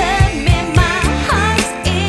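Background pop song with a steady beat and a singing voice.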